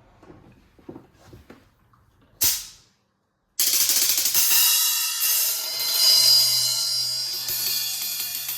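Drum kit with Remo Silentstroke mesh heads and Kasza low-volume practice cymbals: a few faint taps, a single struck hit about two and a half seconds in, then from about three and a half seconds in the kit is played with the cymbals ringing steadily over the drums.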